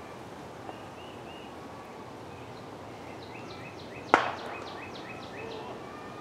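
A cricket bat strikes the ball once, a sharp crack about four seconds in. Around it, short high chirps repeat quickly over a steady outdoor background.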